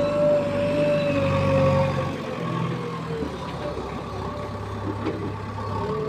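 Heavy diesel machinery engine running, with a steady high whine over it that sags slightly in pitch; the engine's low hum eases off about two seconds in.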